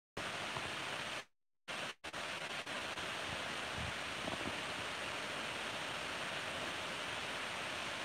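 Steady, even hiss with no distinct sounds in it, cutting out briefly twice about one and two seconds in.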